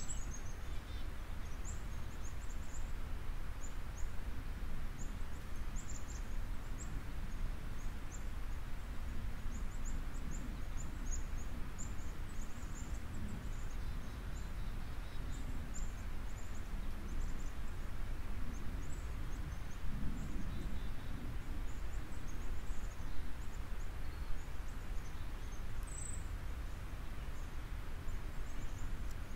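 Steady background noise, a low rumble with a hiss above it, and scattered faint high-pitched chirps throughout, like outdoor ambience with small birds.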